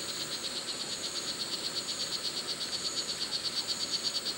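Male red-throated frog giving its mating call: a steady, rapid train of high-pitched pulses, about six a second.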